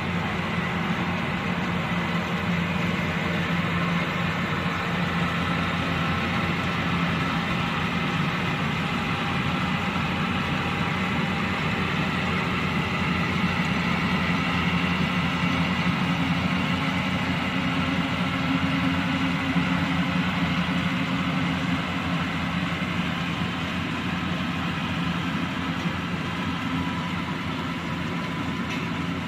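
Yanmar 82V rice combine harvester's diesel engine running steadily at an even pitch, with a constant mechanical hum.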